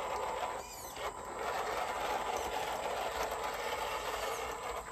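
Electric motor and geared drivetrain of a small RC Toyota pickup crawler running steadily as it drives through a shallow rocky creek, its tyres churning water and gravel. The sound stops near the end.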